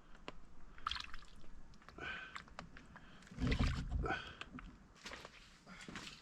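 Scattered small ticks and drips with brief rustling handling noises and a dull thump about three and a half seconds in.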